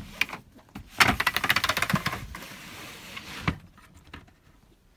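Wooden slats of a pull-out bed base sliding, clattering in a fast run of clicks for about a second, then a softer sliding rush that ends in a single knock.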